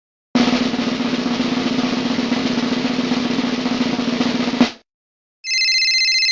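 Snare drum roll, a fast even roll of about four seconds that ends on a louder hit. Near the end a high, steady electronic ringing tone starts.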